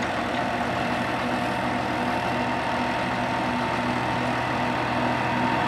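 IH Farmall 806 tractor's engine running at a steady speed, an even hum that does not rise or fall.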